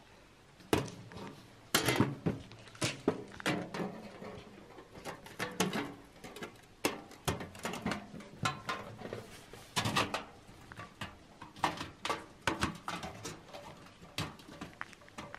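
Thin titanium sheet panels of a folding camp stove clicking and clattering as they are handled and slotted together, an irregular run of sharp metallic knocks, some with a short ring.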